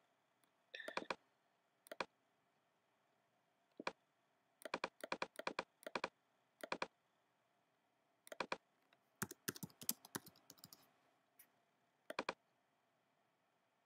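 Scattered sharp mouse clicks and computer keystrokes, irregularly spaced, with a quick run of typing about nine to eleven seconds in.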